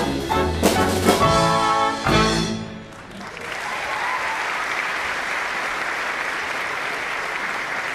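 A theatre orchestra with brass plays the closing bars of a song-and-dance number, ending on a held chord that dies away about three seconds in. An audience then starts applauding and keeps clapping steadily.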